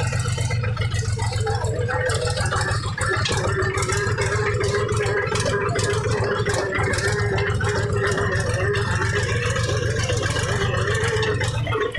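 Mahindra tractor's diesel engine running steadily as it drives over a rough dirt track, with the tractor rattling and clattering over the bumps.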